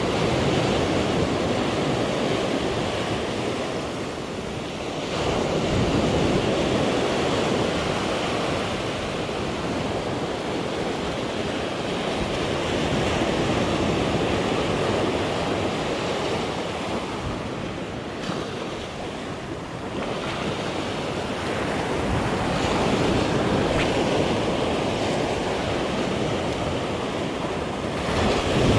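Sea waves washing onto a rocky shore, the surf swelling and easing every few seconds, with wind on the microphone.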